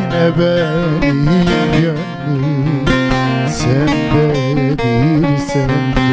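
Turkish folk song (türkü) played on bağlama (long-necked saz lute), with a man singing a wavering, richly ornamented melody over the plucked strings.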